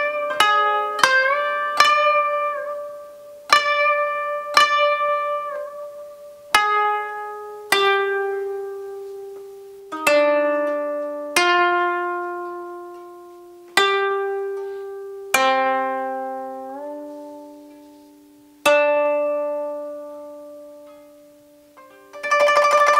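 Koto, the Japanese thirteen-string zither, plucked note by note. A quick run of notes opens, then single notes fall a second or more apart and each rings and dies away. A few notes bend up or down in pitch after the pluck. Near the end a louder, denser sound suddenly cuts in.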